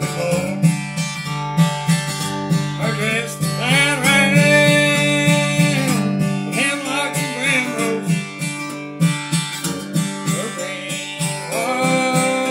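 Martin D-2R dreadnought acoustic guitar strummed in a steady rhythm, with a man singing over it.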